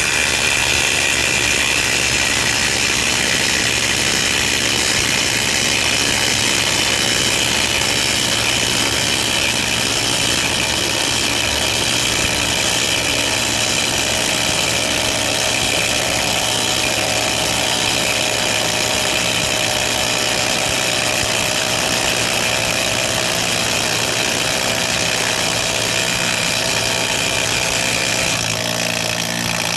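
Two cordless impact drivers, a Milwaukee M18 Fuel Gen 4 2953-20 and a Hilti SID 4-A22, hammering together on maximum torque while driving half-inch lag bolts into pre-drilled 4x4 blocks of dense wood: a loud, steady, continuous impacting. The sound drops slightly near the end.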